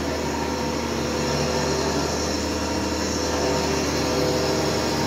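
Multipurpose woodworking machine used as a planer-thicknesser, running steadily with no wood being fed: a constant motor and cutter-head hum with several steady tones, rising slightly about a second in as it comes up to speed.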